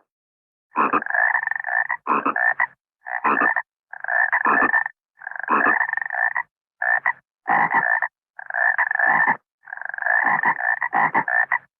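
Frogs croaking in about ten loud, separate bursts, each under a second to just over a second long, cut off sharply with silence between them.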